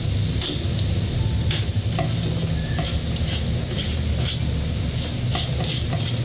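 Scattered light clicks and scrapes of a gimbal's dual-handle grip being screwed together by hand, over a steady low hum.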